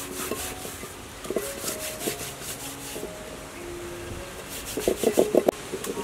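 Rasping scrapes of a whole salted fish being descaled with the rim of a small bowl, in a string of strokes that ends in a loud run of about six quick scrapes near the end.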